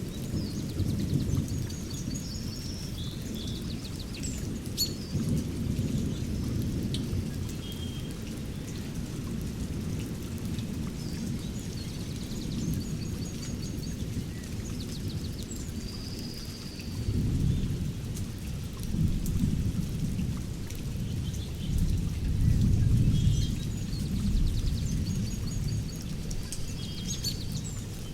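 Thunderstorm recording: steady rain with low thunder rumbling that swells several times in the second half, and birds chirping over it.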